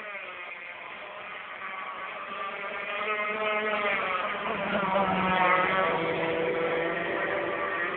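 Twin Zenoah 26cc two-stroke petrol engines of an 84-inch Bonzi Apache RC model powerboat running at speed. They grow louder as the boat comes close, loudest about five to six seconds in, with the engine pitch sliding up and down as it passes.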